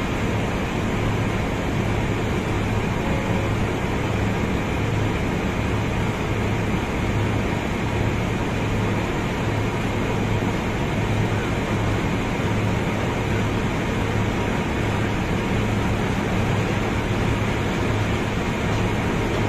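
Steady drone of a sand barge's unloading machinery running: a low, slightly pulsing hum over a continuous rushing noise as sand is discharged from the hold.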